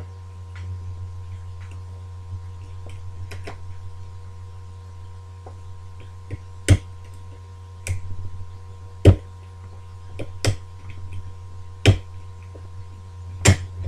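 Lock picks working inside a British Standard ERA multi-slot lever lock, giving sharp metallic clicks a second or so apart, mostly in the second half, as the levers are lifted and set. A steady electrical hum runs underneath.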